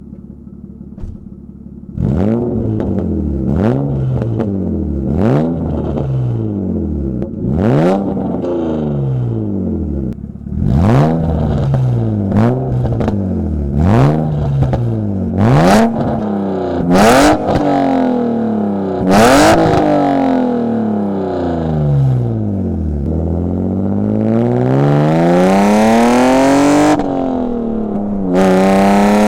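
BMW engine and exhaust idling, then revved in a series of quick blips about every second and a half, with sharp exhaust pops at a few of the peaks. Near the end it revs up slowly, drops back, then climbs again and holds at higher revs.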